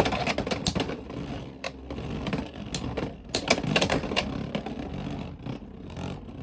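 Two Beyblade X spinning tops, Talon Ptera 3-80B and its opponent, spinning in a plastic stadium: a steady whir with repeated sharp clicks as they collide and rattle against the walls. It is a stamina battle, with both tops still spinning.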